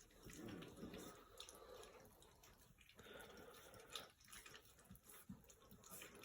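Faint, wet lapping and smacking of three-week-old puppies eating a soft mash of goat's milk and puppy food from a dish, in scattered small clicks.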